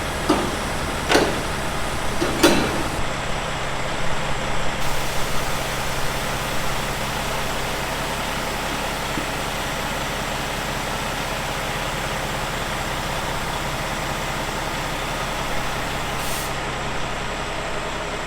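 Grain road train's diesel engine running steadily, heard from inside the cab, with three short air-brake hisses in the first few seconds.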